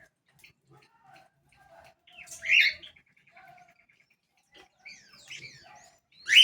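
A bird calling: a loud, harsh call about two and a half seconds in, followed by a quick run of soft ticking notes, and another loud call at the very end.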